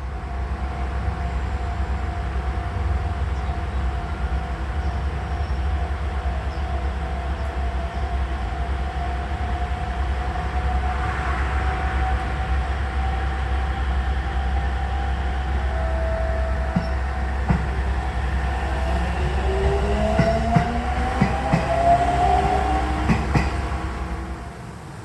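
Train running on rails with a steady deep rumble and a constant whine. In the last quarter a high squeal rises several times over a series of sharp clacks.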